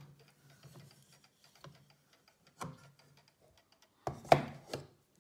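Hinged brass bezel of a Breguet clock being pressed down onto its case by hand: faint rubbing, a small click nearly three seconds in, and a louder cluster of knocks just after four seconds as it seats.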